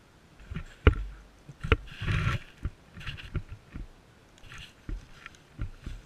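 Sulphur-crested cockatoos feeding on seed on paving right beside the microphone: irregular sharp beak taps and knocks, the loudest about a second in, with a brief scuffling rustle around two seconds in.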